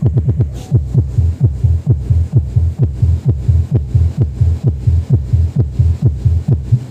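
Music played through a 15-inch subscoop bass cabinet driven by an Ace LX20 power amplifier with its low-pass filter on: only the deep bass of a steady beat comes through, as loud, evenly spaced thumps with no mids or highs.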